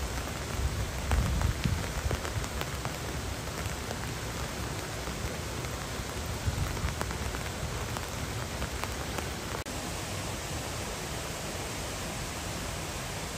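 Steady rain falling, an even hiss dotted with many small ticks of drops, with a few louder low rumbles about a second in and again about halfway through.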